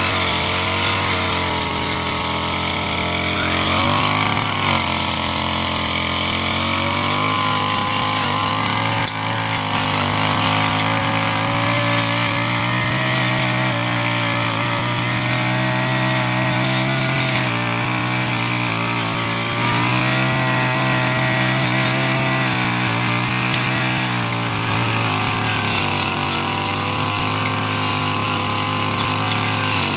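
Petrol brush cutter engine running steadily while cutting grass, its pitch dipping and recovering several times as the blade meets the grass.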